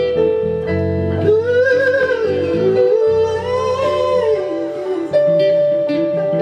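Male soul/R&B vocalist singing two long sliding phrases over guitar accompaniment.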